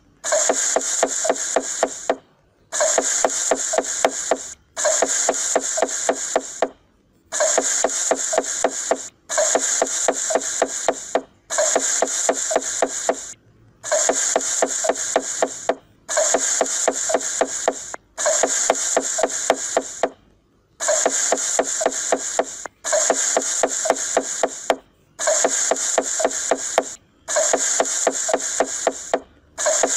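Looped cooking sound effect: rapid, even knife chops on a wooden cutting board, about five a second, over a steady sizzle, restarting about every two seconds after a brief break.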